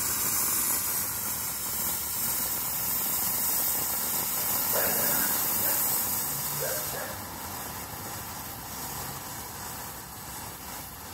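A 'Stars over America' consumer firework fountain spraying sparks with a steady hiss, easing off somewhat after about seven seconds.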